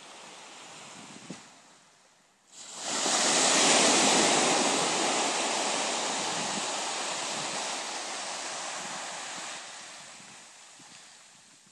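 Small waves breaking and washing up a sandy beach: a steady hiss of surf that swells suddenly about three seconds in, then slowly dies away.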